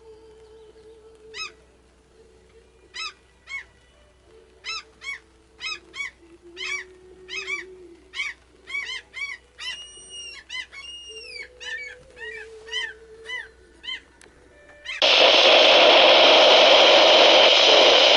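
A bird calling in a long series of sharp, high chirps, about two a second, with a few longer drawn-out calls in the middle, over low wavering tones. About fifteen seconds in, a loud steady hiss starts abruptly.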